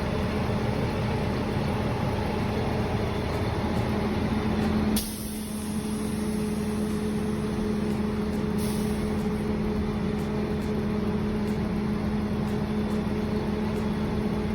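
A heavy truck's diesel engine running steadily, with a short hiss of released air about five seconds in and another near nine seconds.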